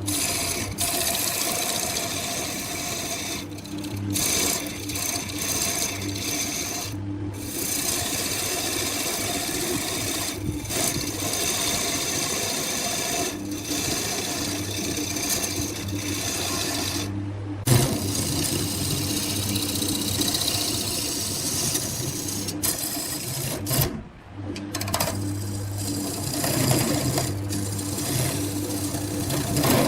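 Wood lathe running with a turning tool scraping and cutting the spinning wood: a steady motor hum under a rasping hiss, broken off abruptly several times.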